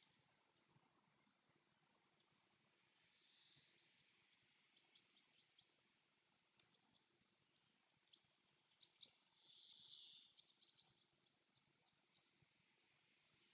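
Faint forest birdsong: several birds chirping in quick runs of short, high notes, starting about three seconds in and busiest through the middle and later part.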